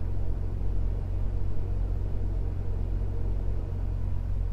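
Semi-truck diesel engine idling steadily, a constant low rumble heard from inside the cab.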